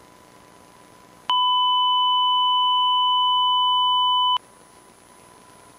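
Broadcast test tone that goes with a colour-bar test card on a DVB-T test channel: a steady, loud single-pitch beep that starts abruptly about a second in and cuts off about three seconds later. A much fainter tone of the same pitch hums underneath before and after.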